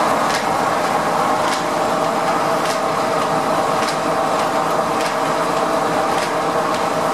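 Steam-powered sawmill running: a single-cylinder steam engine turns its flywheel and drives a flat belt, making a steady whirring hum of machinery with a sharp tick a little more than once a second.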